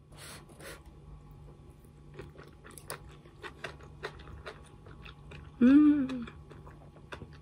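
Close-up eating of glass noodles: two short slurps at the start, then chewing with small wet clicks. About six seconds in comes a short hummed 'mmm' of enjoyment, the loudest sound.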